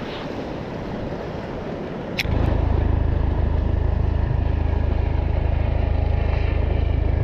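Wind and surf noise, then a sharp click about two seconds in, after which a loud, steady low rumble with a fast flutter sets in and keeps going.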